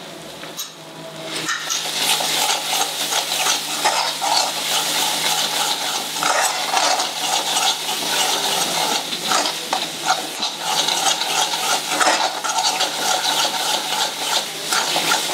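Metal spoon stirring and scraping a thick spiced masala paste around a steel kadai, with quick scrapes and clinks over the sizzle of the paste frying in oil. The stirring grows louder about a second and a half in. This is the bhuna stage: the masala is being fried with freshly added ground spices until the oil separates.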